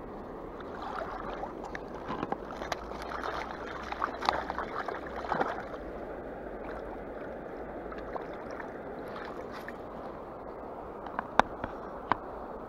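Water sloshing and splashing around a hand and a wire-mesh keep basket as a fish is put into it in the river, over a steady rush of flowing water. A few sharp clicks near the end.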